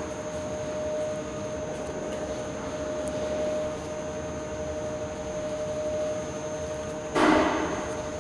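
Steady mechanical hum with a constant tone, like a kitchen fan or extractor, under the soft handling of grape leaves being rolled by gloved hands. A brief louder rustle comes about seven seconds in.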